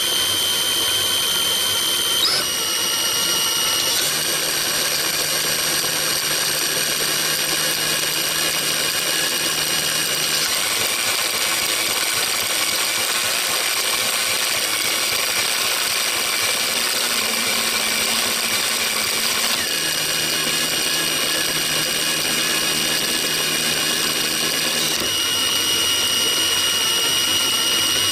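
Small electric motor and gear drive whining steadily at a high pitch, its tones shifting in steps a few times as the speed or load changes.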